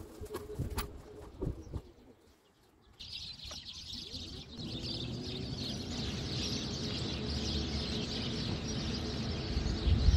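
Birds chirping steadily over the low hum of a mobility scooter running along, after a few seconds of scattered clicks and rattles. The chirping and hum start suddenly about three seconds in.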